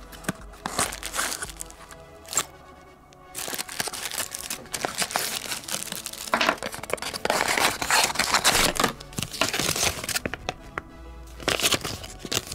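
Crinkling and rustling of a small clear plastic parts bag being handled, heaviest in the second half, over background music.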